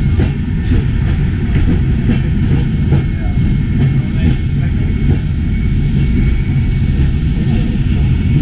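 Peak Tram funicular car running on its rails, heard from inside the car: a steady low rumble with faint clicks and a faint high whine.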